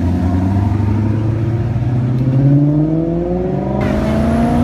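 Sports car engine accelerating, its pitch rising steadily over about four seconds.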